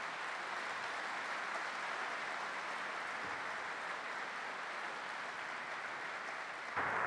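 Audience applauding steadily, growing a little louder shortly before the end.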